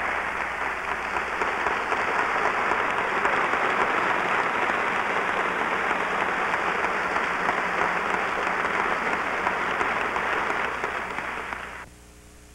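A large lecture-hall audience applauding, a dense, steady clatter of many hands that cuts off sharply about a second before the end.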